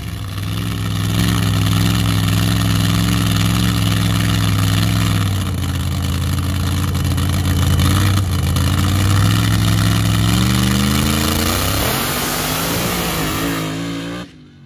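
Mud drag racer's engine running steady and loud at the start line, then revving with a rising pitch as the car launches, cutting off suddenly near the end.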